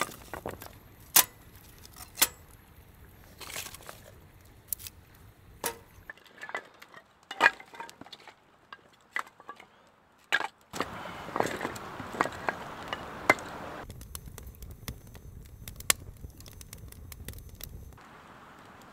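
Wood fire crackling with irregular sharp pops and snaps, the firewood damp, with a steadier rushing stretch partway through.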